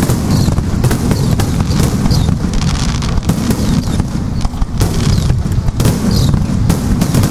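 Starmine firework barrage: aerial shells bursting in quick succession, a dozen or so sharp bangs and booms at uneven intervals over a continuous low rumble.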